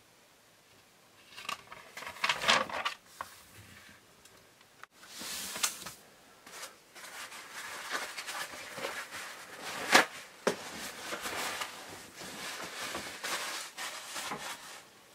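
Newspaper rustling and crinkling as it is handled, in irregular crackles, with one sharp crackle about ten seconds in.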